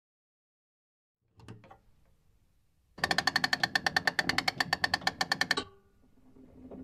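Wind-up gramophone being cranked: a few knocks, then a rapid, even ratchet clicking of the winding crank, about a dozen clicks a second for two and a half seconds, stopping suddenly. A short ring and a faint hum follow.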